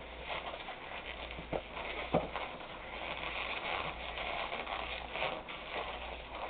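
Long latex modelling balloon being twisted and worked by hand: rubbery squeaking and rubbing, with two short clicks about a second and a half and two seconds in.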